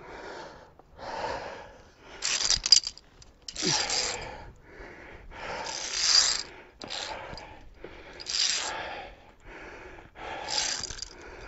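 Via ferrata climbing gear in use: the lanyard's metal carabiners clicking and sliding along the steel safety cable as the climber moves up. Noisy rustling swells every couple of seconds, with sharp clicks among them.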